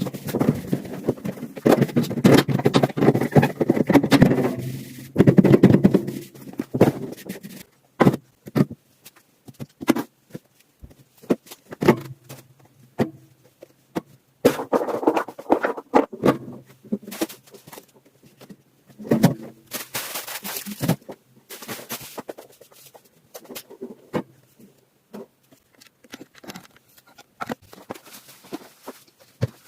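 Refrigerator being cleaned by hand: a long run of irregular clicks, knocks and scrapes as its parts and containers are handled, busier in the first few seconds.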